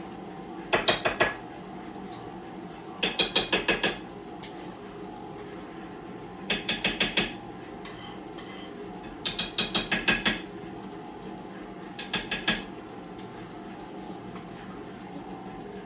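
Five short bursts of rapid clicking, each lasting under a second and coming about every three seconds, typical of a utensil beating cake batter against the side of a mixing bowl.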